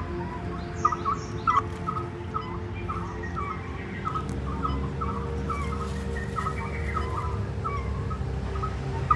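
Birds chirping in short repeated calls, about two or three a second, over a steady low hum.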